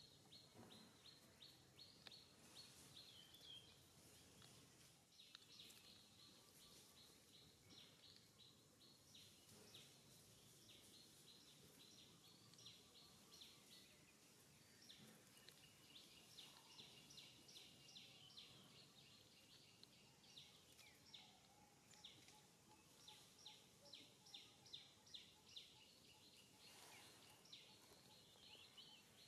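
Faint outdoor ambience with small birds chirping: short high-pitched chirps repeated in quick runs throughout.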